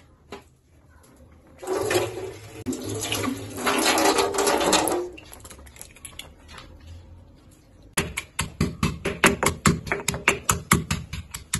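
Water runs from a tap into a steel sink for about three seconds. About eight seconds in, a stone pestle starts pounding fresh green peppercorns and green chillies in a stone mortar: rapid, sharp knocks, about four a second.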